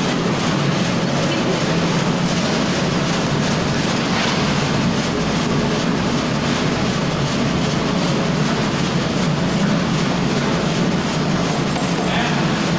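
Belt-driven red chilli powder oil-mixing and lump-breaking machine running steadily, its electric motor and rotor giving a loud, even mechanical hum and clatter while it discharges powder.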